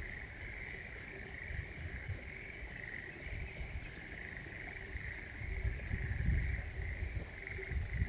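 A steady chorus of frogs, a continuous high trilling with no breaks, over a low, gusty rumble that swells about six seconds in.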